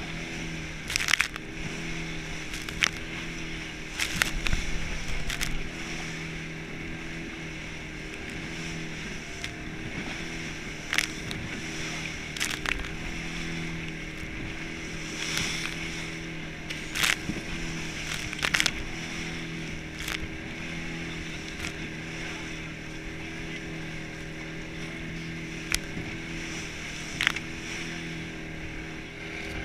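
An open fishing boat's motor running steadily at speed while the hull slaps through choppy water, with sharp hits of hull and spray every second or two over a constant rush of water and wind.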